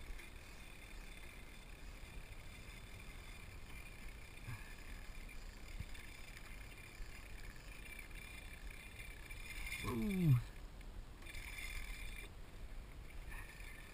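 Steady wash of small sea waves lapping around a kayak, with wind noise. About ten seconds in there is a brief vocal exclamation that falls in pitch.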